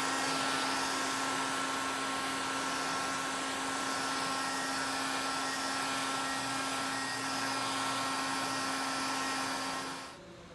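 Heat gun blowing hot air steadily, with a motor hum and fan whine under the rush of air, switched off about ten seconds in. It is being used to restore faded plastic bumper trim.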